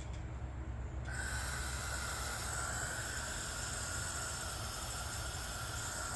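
A pressurized spray, such as carb cleaner or compressed air blown into a clogged generator carburetor, hissing steadily for about five seconds from about a second in, with a thin whistle running through it, then cut off sharply.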